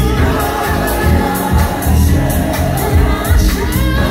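Soulful gospel house music played loud through a club sound system, with a steady beat, heavy bass and choir-like vocals, and a man singing live into a microphone over the track. The sound is captured on a phone.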